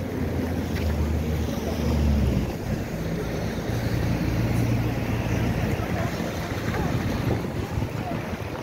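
City street traffic: motor vehicle engines running with a low hum over a steady hiss of traffic, with wind on the microphone.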